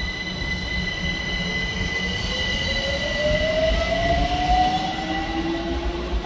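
London Overground Class 378 Electrostar electric train pulling away, its traction motor whine rising in pitch as it picks up speed, over a steady high-pitched whine and the low rumble of the wheels.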